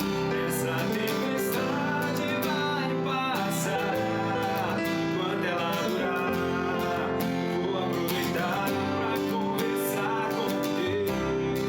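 Music led by strummed acoustic guitar, playing without a break.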